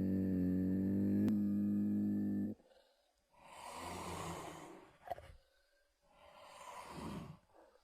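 Utahraptor creature sound effect: a low, steady rumbling growl that cuts off abruptly about two and a half seconds in, followed by two slow breaths with a short click between them.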